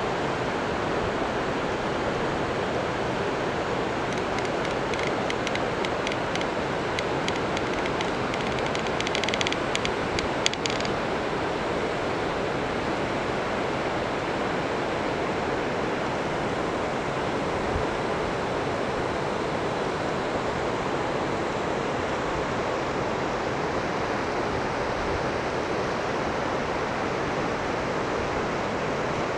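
Steady rushing of a mountain stream. A patch of faint crackling runs from about five to eleven seconds in.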